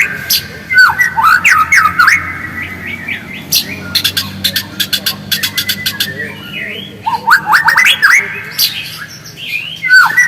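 White-rumped shama (murai batu) calling in bursts of quick rising and falling chirps mixed with sharp ticks, quieter for a moment near the end.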